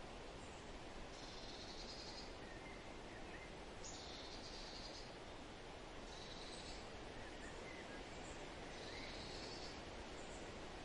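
Forest ambience: a steady background hiss, with a high buzzing call about a second long repeating several times and a few faint bird chirps.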